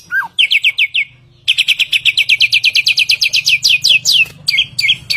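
A samyong songbird singing loud, rapid trills of repeated sharp downslurred notes, about ten a second, pausing briefly about a second in. Near the end it switches to slower hooked notes, about two a second.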